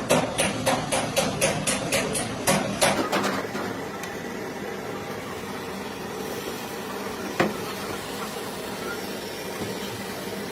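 A quick run of about a dozen sharp hammer taps, roughly four a second, then a single knock a few seconds later, over a steady background hum.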